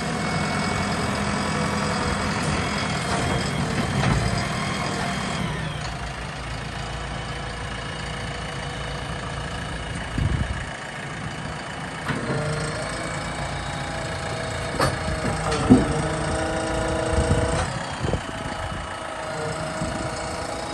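JCB 3DX backhoe loader's diesel engine running, its revs dropping about five seconds in. Later come a few sharp clunks and a steady whine.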